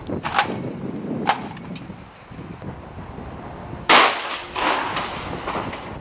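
A microwave oven being handled and set down on a wooden stump: several sharp clatters and knocks of its metal case and glass parts, then a much louder single sharp bang about four seconds in, with a short ringing tail.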